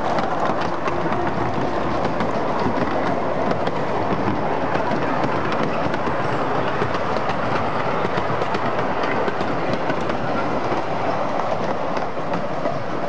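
A 10.25-inch gauge 2-4-2T steam tank locomotive running close past, followed by its train of small passenger coaches. Their wheels make a steady rolling rumble with many quick clicks over the rail.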